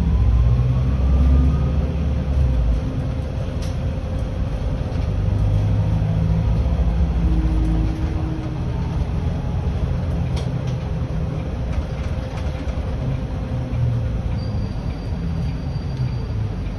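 Volvo 7900 Hybrid city bus driving, heard from inside the cab: a steady low rumble of drivetrain and road noise, with a whine that rises in pitch over the first two seconds. Two sharp clicks come about four and ten seconds in.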